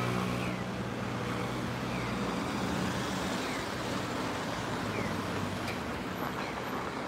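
Road traffic on a city street: cars passing with a steady tyre-and-engine rush, one vehicle's engine hum fading away in the first second or two. Faint short chirps repeat through it about every 0.7 seconds.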